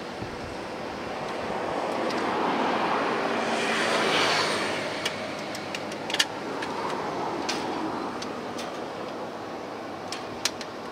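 Road traffic on the bridge deck: a vehicle swells past, loudest about four seconds in, over a steady traffic hum. A few short sharp clicks come later.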